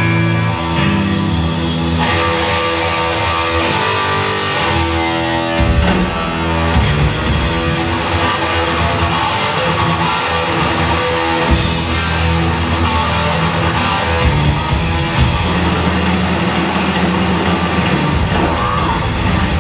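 Heavy metal band playing live on electric guitar, bass guitar and drum kit, with a much heavier low end from about five seconds in.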